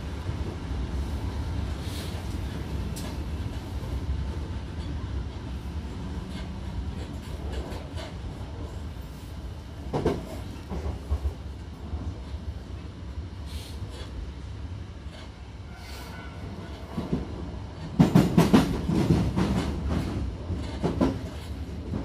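Hankyu electric train running, heard inside the passenger car: a steady low rumble, with the wheels clattering over rail joints in a short cluster about halfway through and a louder run of knocks near the end.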